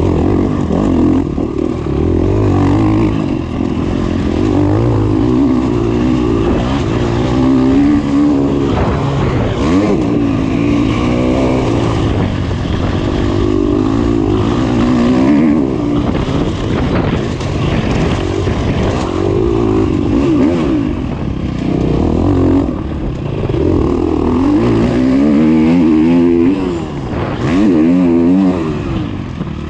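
KTM dirt bike engine at race pace, its revs climbing and dropping again and again as the rider accelerates and backs off over rough dirt track.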